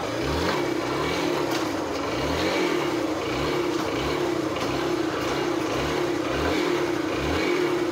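A Yamaha SZR's single-cylinder four-stroke engine running steadily, with a lower undertone that rises and falls about once a second. The mechanic says this engine has lost its pulling power and is burning a lot of engine oil.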